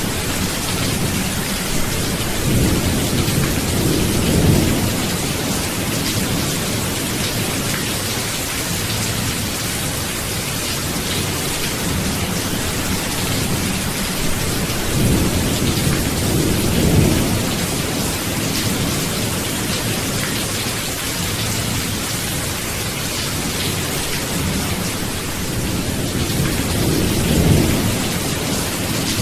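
Steady rain falling, with three rolling rumbles of thunder about ten seconds apart, each swelling and fading over a few seconds.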